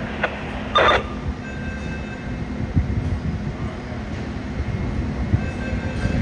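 Fire apparatus diesel engines running at the scene, a steady low rumble with a constant hum. A brief sharp burst of noise cuts in about a second in.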